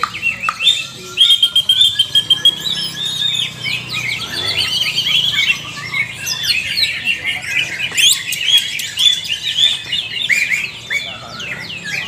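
Several caged cucak ijo (leafbirds) singing at once: a dense, continuous stream of chirps, trills, fast repeated notes and sliding whistles.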